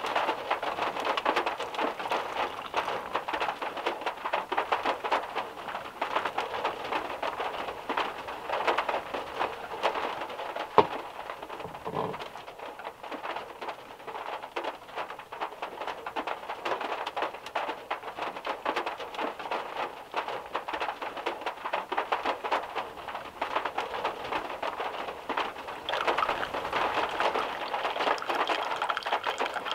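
Heavy rain on a VW Beetle's metal roof, heard from inside the car: a dense, steady patter of drops that grows a little louder near the end. One sharp click sounds about eleven seconds in.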